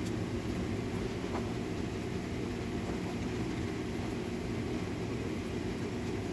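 Blacksmith's forge running with a steady, even low rushing noise while a piece of wrought iron heats in the fire.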